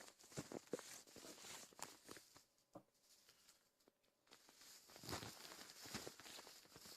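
Faint footsteps crunching in snow, irregular steps with a short lull about three seconds in.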